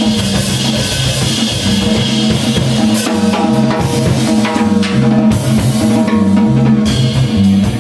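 Live jazz: a drum kit with cymbals and snare, over an upright bass playing a line of low notes.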